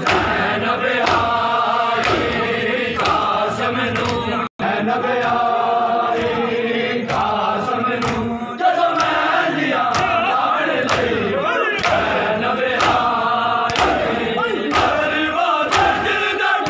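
A large crowd of men chanting a mourning noha in unison, with regular sharp slaps of hands on bare chests (matam) keeping the beat. The sound drops out for an instant about four seconds in.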